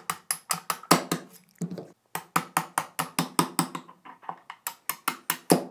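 Small ball-peen hammer tapping repeatedly, about four light taps a second, driving the receiver pins out of a Henry Homesteader 9mm carbine, with a brief pause about four seconds in.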